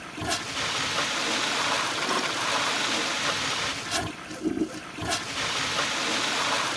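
Toilet flushing: water rushing steadily through the bowl, with two brief lulls about four and five seconds in.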